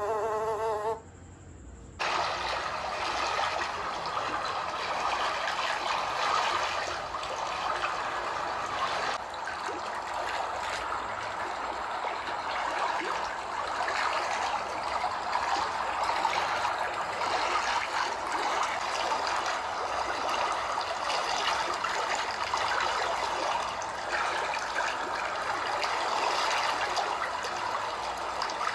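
Steady rush of running water that starts about two seconds in and carries on without a break. A short pitched tone is heard right at the start, before it.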